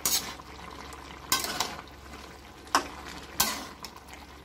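A metal spatula stirring a wet vegetable and fish curry in a metal wok, making several short scrapes against the pan about a second apart.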